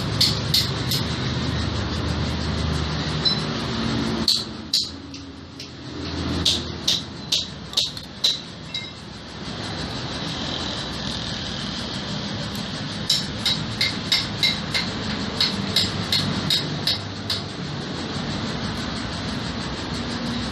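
Light metallic clicks and clinks in clusters as clutch plates are handled and slid into the clutch basket of a Yamaha Gladiator motorcycle engine, over a steady low background rumble.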